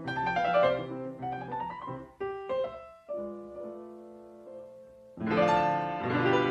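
Solo grand piano playing classical music: quick notes for the first few seconds, then a chord left ringing and fading. Near the end, louder and fuller music comes in suddenly.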